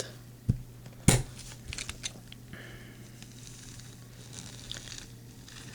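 Light clicks and a sharp knock from a small die-cast toy bulldozer being handled as its metal front bucket is worked, followed by a faint soft rustle.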